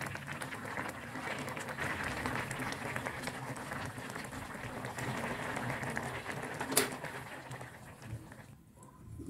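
Coconut-milk broth with water spinach bubbling in a pan while a spatula stirs it, with a steady crackle. About seven seconds in a sharp clink as a glass lid goes on, after which the sound turns quieter and duller.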